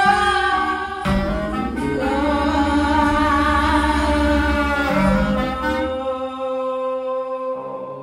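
Live experimental music: a woman's voice and a clarinet hold long notes over electronic drones, with deep low thuds about a second in and again near the middle. The sound thins to one held note that fades away near the end.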